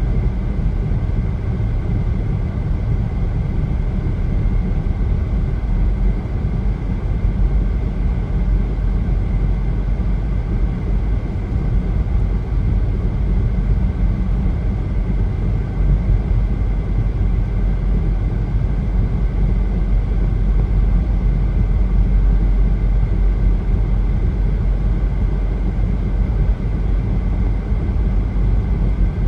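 Steady road noise of a car driving on a highway: a continuous low tyre-and-engine rumble heard from inside the car.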